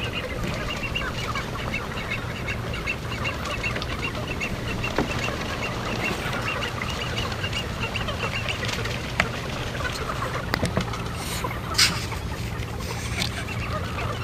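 Birds at a wetland waterbird colony calling: a fast run of short high notes, about four a second, which stops about two-thirds of the way through. A steady low hum runs underneath, and a few sharp clicks and a brief noisy burst come near the end.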